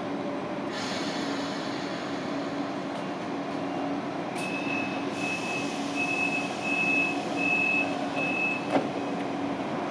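Regional push-pull train rolling slowly into the platform with a steady hum. There is a hiss of air about a second in, then a run of about six high beeps, cut off by a short clank near the end.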